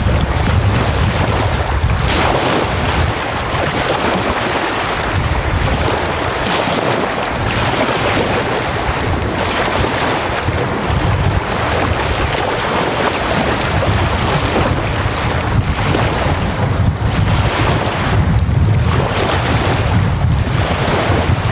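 Lake waves washing repeatedly onto a sandy beach, the wash swelling and ebbing, with gusting wind and a low rumble of wind on the microphone.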